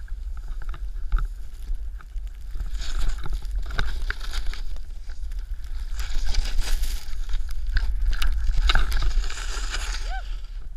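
Snowboard sliding and carving over snow, its edge scraping with a rough hiss that swells in the turns, loudest around six and nine seconds in. A steady low rumble of wind on the microphone runs underneath.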